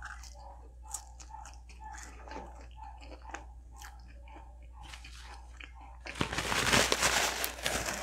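Close-miked mouth sounds of someone chewing food, with small wet clicks about twice a second. About six seconds in, loud crinkling and rustling of food packaging starts.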